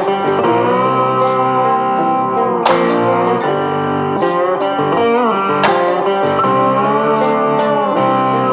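Background music: a blues-style guitar piece with sliding, bending notes over a steady beat, a sharp hit landing about every second and a half.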